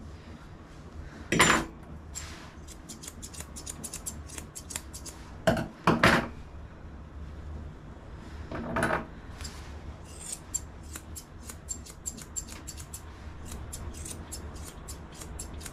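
Long curved grooming scissors snipping along the edge of a cockapoo's long ear hair: many quick, light snips in runs. A few louder short noises come in between them.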